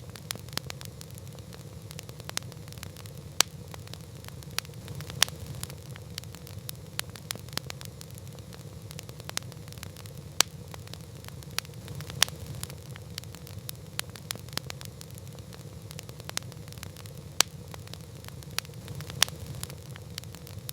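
Campfire burning: irregular sharp crackles and a few louder pops over a steady low rumble.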